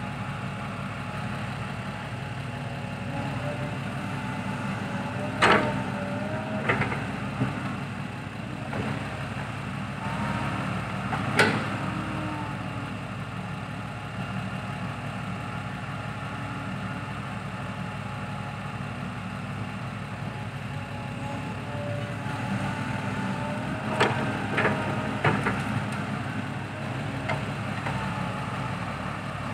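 Heavy diesel engine running steadily at low revs, with a faint wavering whine. Sharp clanks and knocks come once early, again around the middle and in a cluster near the end.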